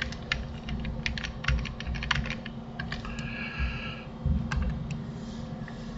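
Computer keyboard and mouse clicking: an irregular run of quick clicks that thins out after about two and a half seconds, with a brief scratchy sound around three seconds in, over a steady low hum.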